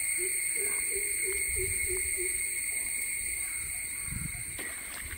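Steady high-pitched drone of insects in the scrub. Over it, in the first two seconds, comes a run of about eight short, low hooting call notes, and some of the insect tones drop out about four and a half seconds in.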